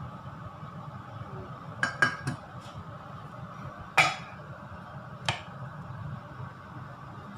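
Kitchenware clinking and knocking as a pancake is lifted from a small nonstick frying pan with a spatula and set on a plate: three quick knocks about two seconds in, a louder clink about four seconds in and one more a little after five seconds, over a steady low hum.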